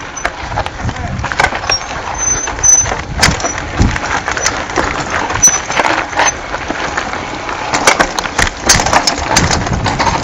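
Mountain bike rolling down a rocky dirt trail: a steady rumble of tyres over dirt and stones, with frequent clicks and rattles from the bike.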